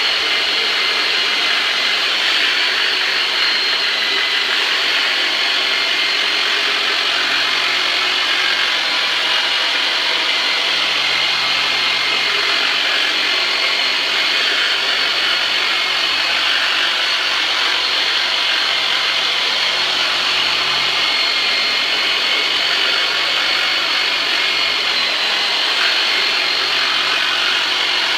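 Turbonator handheld massager running steadily, worked deep into the trapezius muscles: a continuous motor buzz with a thin, steady high whine.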